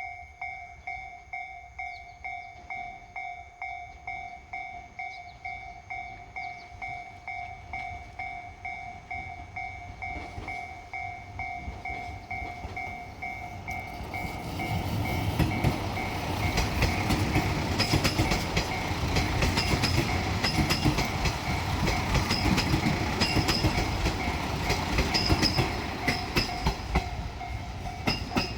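A Japanese level-crossing warning bell rings about twice a second. About 14 seconds in, a JR Shikoku Series 185 limited express diesel multiple unit passes over the crossing, its engine and wheel noise swelling loud with a rapid clatter over the rail joints, while the bell keeps ringing underneath.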